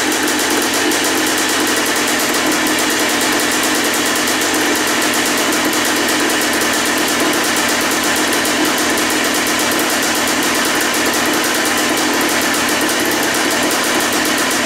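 Yamaha Blaster 200cc two-stroke single-cylinder engine in a Yamaha Big Wheel idling steadily, freshly rebuilt with a new top end (piston and cylinder) and running just after starting.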